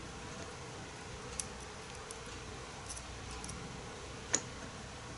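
Light metallic clicks of steel tweezers and greased steel bearing balls as the balls are set one at a time into the ball race of a Jacobs ball-bearing Super Chuck: about five scattered ticks, the sharpest about four seconds in, over a faint steady hum.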